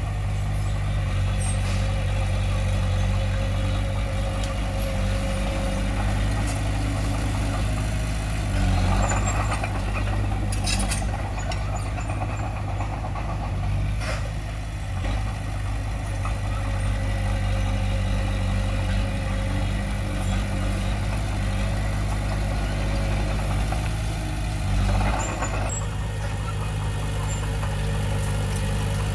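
Diesel engine of heavy earthmoving equipment running steadily, swelling briefly about nine seconds in and again near the end, with a couple of sharp knocks in between.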